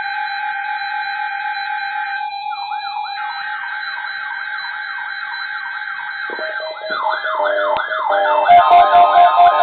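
Layered electronic alarm and siren tones: steady held tones, then a siren sweeping up and down about three times a second from about two and a half seconds in, joined by louder sweeps around seven seconds in. Near the end a pulsing beat with low thumps comes in under the sirens.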